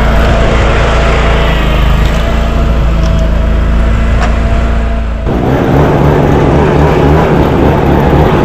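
Loud engine running steadily. About five seconds in it changes abruptly to a different, busier engine sound.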